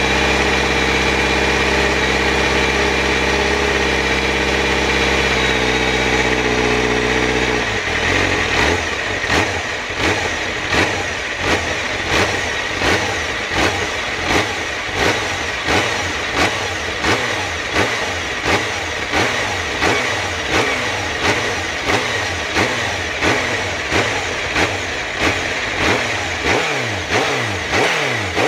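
Honda CBR1000RR-R SP's inline-four through an Akrapovic exhaust, running steadily at idle for about eight seconds, then blipped over and over in neutral: a short rev about every three-quarters of a second, each one falling back quickly.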